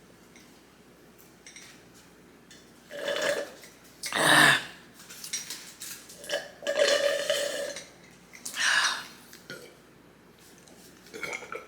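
A woman burping several times after gulping down the last of a grape soda, the burps a second or two apart, the loudest about four seconds in.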